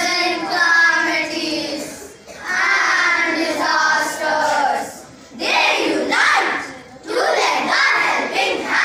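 A group of children's voices in unison, performing a piece in chorus, in phrases of two to three seconds parted by short pauses.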